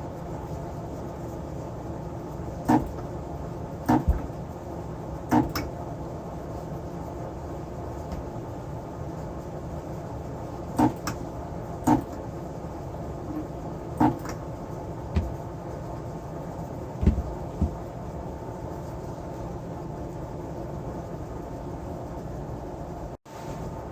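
Scattered light clicks and knocks, about ten of them in the first two-thirds, of small tools and parts being handled on a workbench over a steady low hum.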